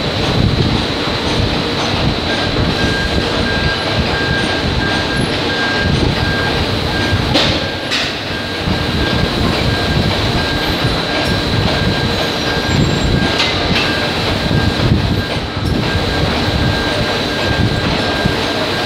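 Steady din of factory machinery on a metal-processing shop floor, with a constant high whine running through it and a few sharp metallic knocks.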